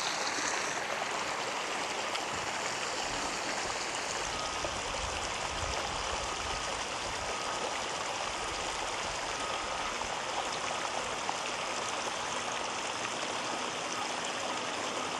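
Inflow water steadily pouring and splashing into a pond at a small inlet: a constant rush of running water.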